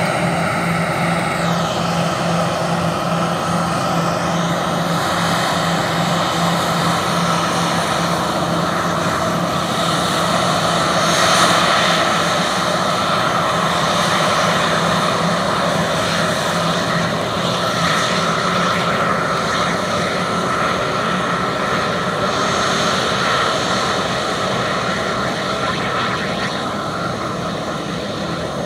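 Airbus A320 jet airliner's engines running steadily at low power as it taxis: a constant whine over a low hum, swelling slightly about eleven seconds in.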